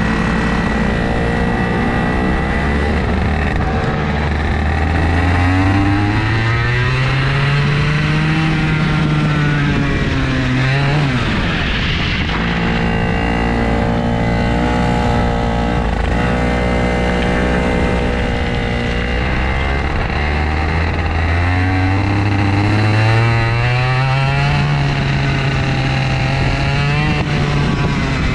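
IAME KA100 100cc two-stroke kart engine under way, its note climbing steadily as the kart accelerates. The note drops sharply when the throttle is lifted about eleven seconds in, runs steady for several seconds, then climbs again through the second half.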